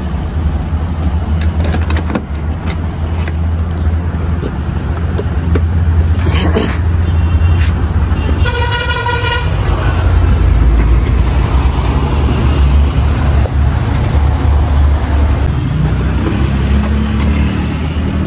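Steady low rumble of street traffic, with a car horn sounding once for about a second roughly halfway through.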